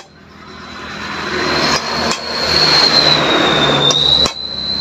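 About four sharp metal taps, a punch struck to seat the new steering-head ball race onto a Honda XRM125's steering stem, set against a loud noise with a steady high whine that swells up over the first two seconds and then holds.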